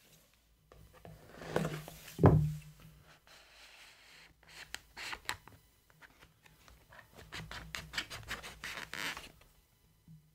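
Cardboard gift box being opened by hand: the sleeve rubs and scrapes as the inner tray slides out. There is one thump about two seconds in, and later a run of quick scratchy clicks.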